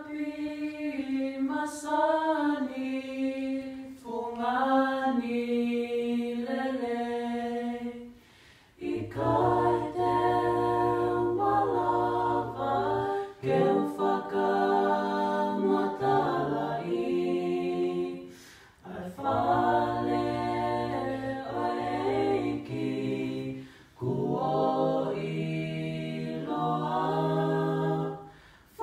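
A small family group singing a cappella in harmony. Higher voices carry the opening phrase, then a deep male voice joins about nine seconds in for the full harmony. The song goes in phrases with short breaks for breath between them.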